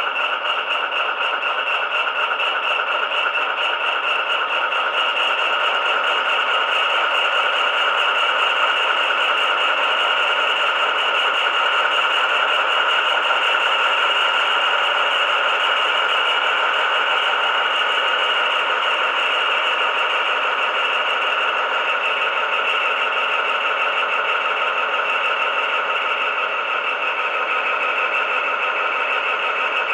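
Recorded sound of an HST power car's Paxman VP185 diesel engine idling steadily, played by a model locomotive's DCC sound decoder through its small speaker. It comes out thin, with no deep bass, and swells a little in the middle.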